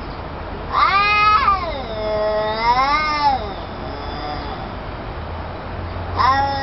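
Domestic cat yowling in a standoff with a rival cat: a long, wavering caterwaul that rises and then falls, starting about a second in, with another beginning near the end. This drawn-out yowl is a cat's threat call, given while facing off before a fight.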